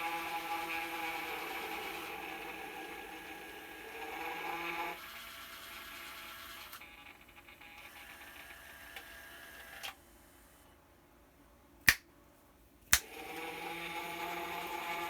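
Gemmy animated floating ghost decoration running with a steady hum. The hum drops about five seconds in and dies away. After a quiet stretch come two sharp clicks about a second apart, and then the hum starts again.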